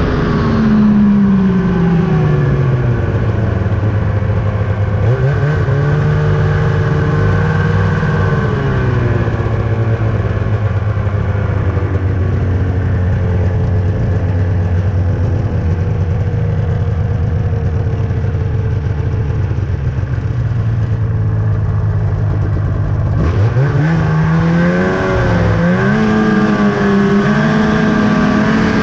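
2000 Ski-Doo Summit 800 snowmobile's two-stroke twin running under a rider. The engine note drops as it slows in the first few seconds, then holds mostly steady, apart from a short rise and fall. Near the end it climbs again as the sled accelerates.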